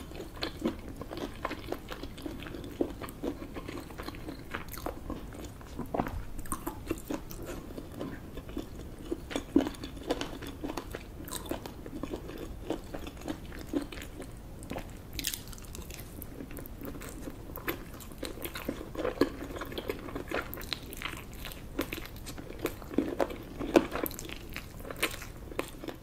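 A person chewing and biting into roast chicken, with wet mouth sounds and irregular sharp clicks throughout.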